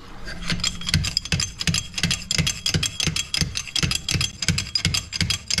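Hydraulic bottle jack being pumped by its lever handle, lifting the front of a tractor: a steady run of metallic clicks and knocks, about three a second.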